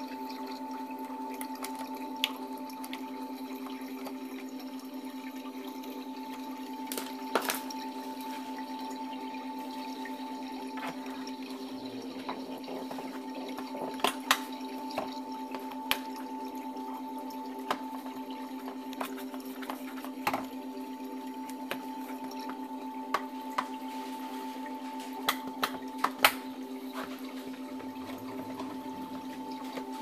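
A steady hum with several fixed tones throughout, broken by a dozen or so short, sharp clicks and knocks from handling the dishwasher door and its detergent dispenser.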